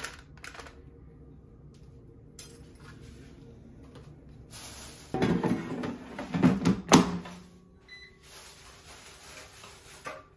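Cosori air fryer's basket being slid into the machine and clunking shut, a run of knocks and scrapes ending in one sharp clack about seven seconds in. Light clicks of a fork on the basket come just before.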